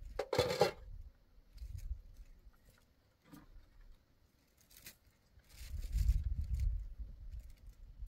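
Wind gusting against the microphone as a low rumble, strongest near the end, with a short rustling clatter just after the start and a few light clicks of household things being handled.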